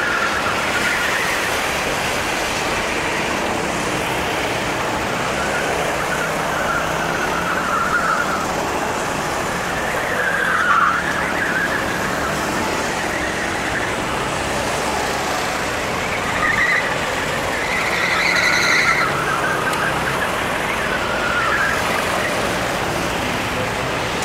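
Several Sodi RT8 rental karts running on the track, their engines rising and falling in pitch as they pass, accelerate out of corners and brake, over a steady wash of engine noise. The loudest passes come about ten seconds in and again near eighteen seconds.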